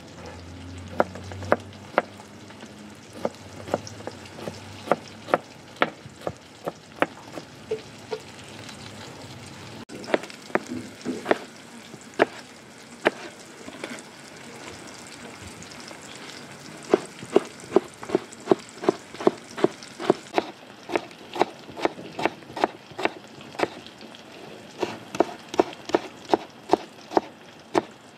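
Kitchen knife chopping tomatoes and green pepper on a plastic cutting board: sharp knocks of the blade on the board, scattered at first, then quick runs of about three a second, over a steady hiss.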